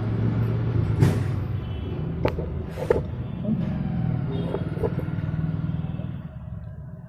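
Bajaj Platina's single-cylinder four-stroke engine running with the rocker covers off, with a few sharp clicks over the steady hum; the ticking comes from loose rocker arms (excess valve clearance). The engine sound dies away near the end.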